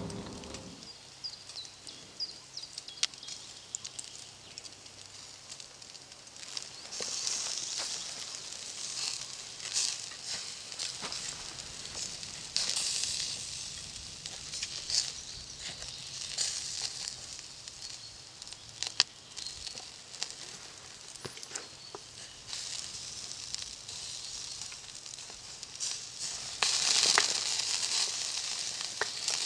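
Meat skewers sizzling over a charcoal grill: a steady hiss that swells louder now and then, loudest near the end, with scattered crackles and pops from the coals.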